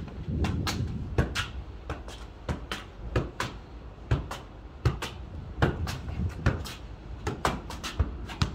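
Football being kicked and bouncing on concrete paving slabs, with shoes scuffing and tapping on the slabs. The sharp thuds come irregularly, about two a second and often in pairs, over a low steady rumble.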